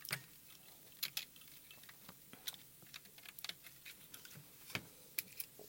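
Irregular light clicks and taps of small plastic parts being handled and pressed into place in a Radiomaster Boxer radio transmitter's case during assembly.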